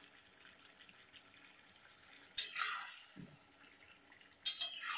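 A metal spoon clinks twice against a metal kadai (wok), about two seconds apart, each knock ringing briefly.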